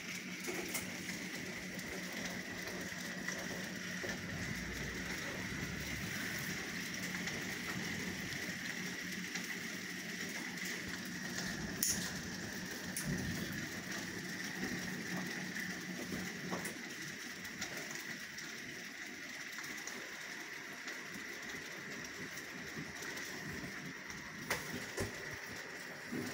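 Steady rain falling as a continuous even hiss, with a few isolated drip taps.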